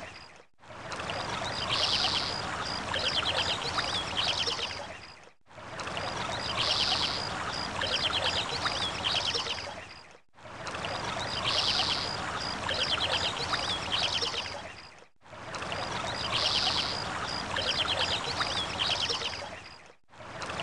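Looped nature ambience: running water with birds chirping and trilling. The same stretch of about five seconds repeats four times, with a brief drop-out between repeats.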